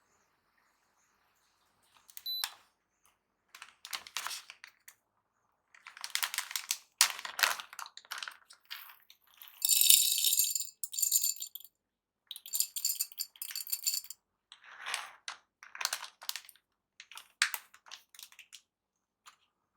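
Intermittent clinks and clatter of metal coffee-making gear being handled, with a ringing metallic clink about ten seconds in.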